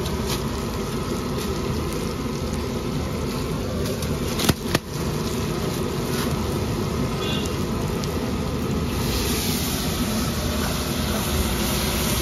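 Onion-capsicum masala sizzling on a large iron tawa over a steady low traffic rumble. Two sharp clicks come just before the middle, and the sizzle turns brighter and hissier about nine seconds in as the masala is stirred.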